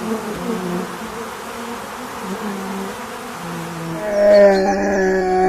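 Bees buzzing in a wavering drone; about four seconds in the buzz grows louder and steadier before cutting off suddenly.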